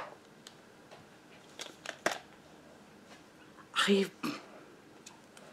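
A few soft clicks and knocks from small cosmetic jars and packaging being handled, then a brief voice-like sound about four seconds in.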